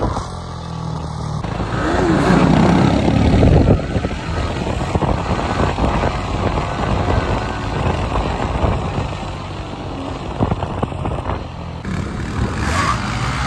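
Motorcycle engine running, louder for a couple of seconds shortly after the start, under a dense rumbling noise.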